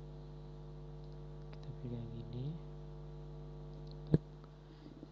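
Steady electrical mains hum on the recording, with a brief faint mutter of voice about two seconds in and one sharp click a little after four seconds.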